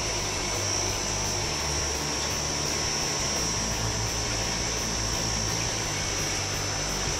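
Steady mechanical hum of an aquarium's water pump heard underwater, a low drone with a constant high-pitched whine over it.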